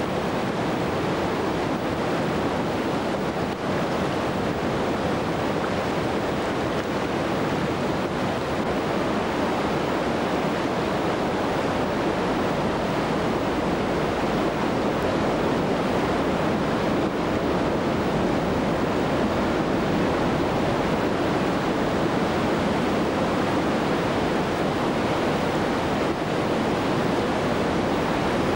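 Whitewater river rapids rushing, a steady, even noise of churning water.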